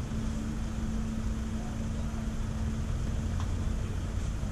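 Steady low engine drone with a constant hum over a rumbling undertone.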